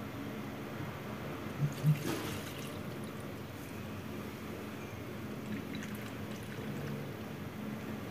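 Milk being poured into a saucepan: a faint, steady pour, with a couple of light knocks about two seconds in.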